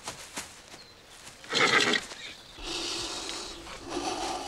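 A horse neighing: a short loud call about a second and a half in, then a longer one from about two and a half seconds on.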